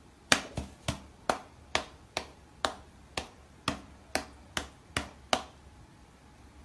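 A cat's paw and a person's hand slapping together in a pat-a-cake game: about a dozen sharp slaps, roughly two a second, stopping a little over a second before the end.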